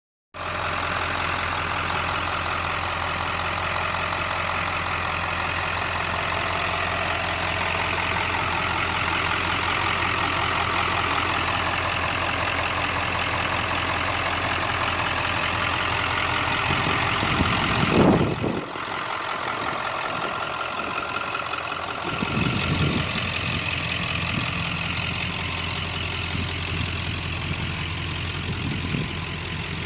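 1997 Ford F450 rescue truck's engine idling steadily. A brief low thump about eighteen seconds in.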